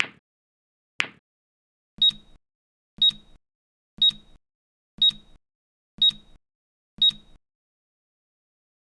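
Newton's cradle balls clacking twice, a second apart, then a timer alarm giving six short high beeps, one a second, signalling that the countdown has run out.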